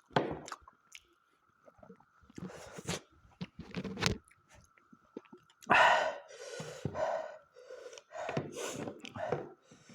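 Close-up mouth sounds of a person eating mutton curry: irregular wet chewing, lip smacks and bites, the loudest burst about six seconds in. A faint steady high tone runs underneath.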